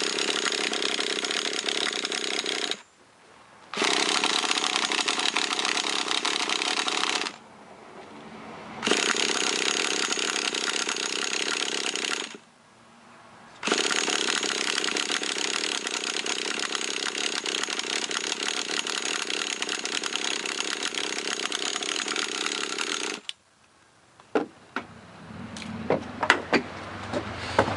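Electric starter spinning a nitro RC truck's small glow engine in four long bursts, the last about ten seconds, without the engine catching. The owner blames a dead glow plug. A few clicks and knocks come near the end.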